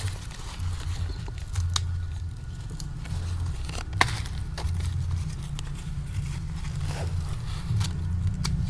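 A black plastic polybag of soil holding a teak seedling is handled, giving light crinkling and scraping with a few sharp clicks, loudest about four seconds in, over a steady low rumble.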